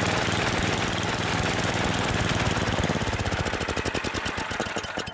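Ariens 824 snow blower's eight-horsepower single-cylinder engine running steadily, then shut off about three seconds in, its firing slowing until it coasts to a stop near the end.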